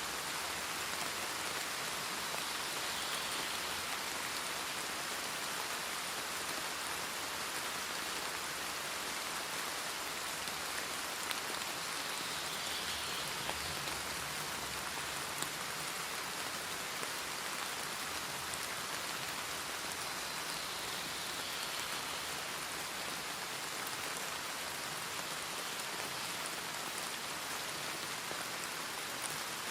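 Steady rain falling, an even hiss with a couple of sharper drop hits.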